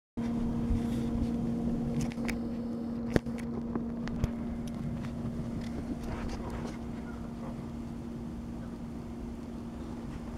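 A steady machine hum holding one pitch, over a rough low rumble, with a sharp knock about three seconds in and a smaller one about a second later.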